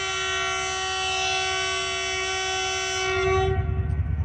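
Train horn sounding one long steady blast, starting suddenly and lasting about three and a half seconds before cutting off.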